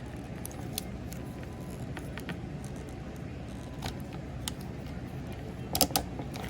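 Hard plastic parts of a Transformers figure clicking as panels are flipped and tabbed into place. There are a few light clicks, then a quick cluster of sharper clicks near the end, over a steady background hiss.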